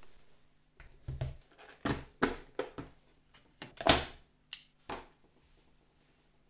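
Light clicks and knocks of handling on a cutting mat: a Super 8 film camera set down and a plastic precision screwdriver case handled as the screwdriver is taken out. About a dozen short sounds, the sharpest about four seconds in.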